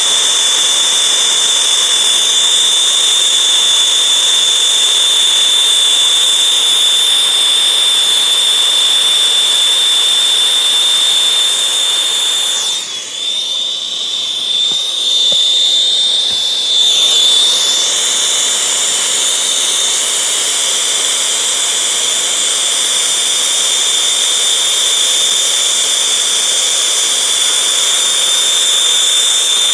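Gas torch burning with a loud, steady hiss and a high whistling tone. About halfway through the sound dips and wavers for a few seconds, then settles back to the same steady hiss.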